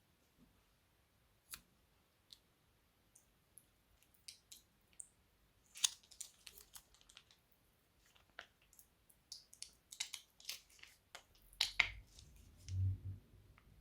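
Crunchy slime with plastic piping bags giving irregular sharp crackles and clicks as it is worked by hand. The crackles are sparse at first and come thick from about six seconds in, with a dull low thump near the end.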